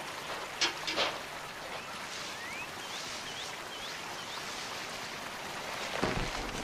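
Steady hiss of running water. Two sharp knocks come near the start, then a bird gives a quick series of about five short, high, upward-sweeping chirps in the middle. A dull thump comes near the end.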